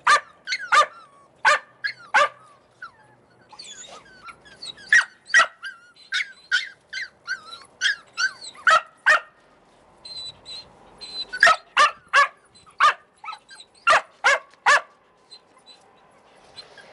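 Australian Cattle Dog puppies barking in play: many short, high yaps in quick clusters, with thin whines between some of them. There is a short lull near the end.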